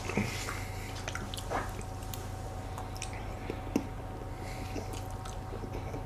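Quiet close-up chewing of very soft banana crumble chiffon cake, soft wet mouth sounds with a few small fork clicks, one sharper tick a little before four seconds in.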